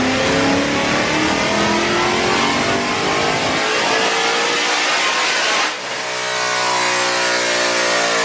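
Supercharged Ford Mustang GT's 5.0 V8 at full throttle in a chassis-dyno pull, its pitch climbing steadily. About six seconds in the sound dips briefly, then climbs again.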